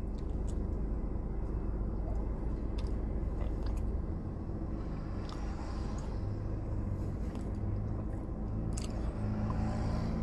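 Someone chewing a bite of a peanut butter and jelly Reese's cup, with scattered small crunches and clicks over a steady low hum.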